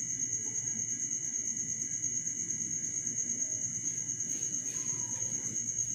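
Crickets chirping: a steady high trill pulsing evenly several times a second over low room noise, with a few faint scrapes about four seconds in.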